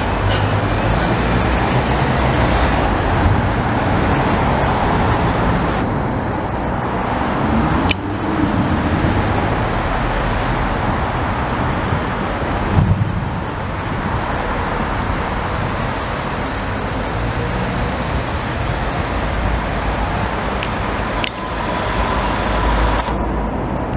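The Flying Scotsman, an LNER A3 three-cylinder Pacific steam locomotive, and its train running past close by over a level crossing: a continuous, loud mechanical noise with a heavy low end.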